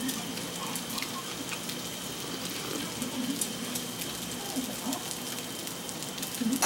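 Sliced pork and kimchi sizzling on a grill pan over a portable gas burner: a steady hiss with light crackle.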